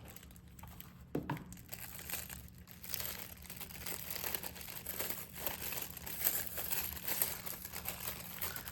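Packaging crinkling and rustling as it is handled while a model railroad car is taken out of its box, with irregular small crackles and a sharper crackle about a second in.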